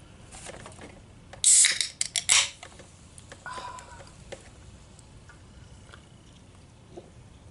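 A carbonated soft drink being opened: a short, loud fizzing hiss about a second and a half in, followed by several sharp clicks and knocks and a smaller hiss about two seconds later.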